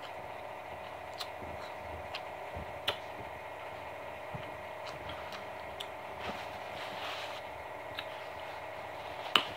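Eating sounds: scattered soft clicks and smacks of chewing and fingers picking at food, the sharpest near the end, over a steady background hum.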